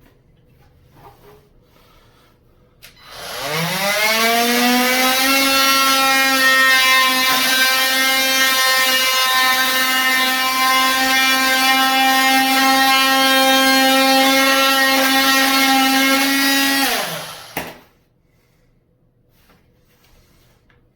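KIMO 20V cordless oscillating multi-tool switched on: its motor whine rises in pitch as it spins up about three seconds in, holds a steady high whine for about fourteen seconds, then winds down and stops.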